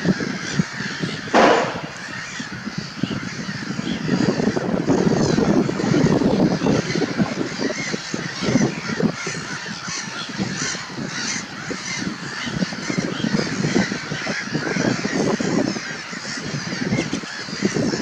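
Dense chorus of many wetland birds calling at once, waterfowl among them, in a steady overlapping din of short calls. One brief, louder, sharp sound stands out about a second and a half in.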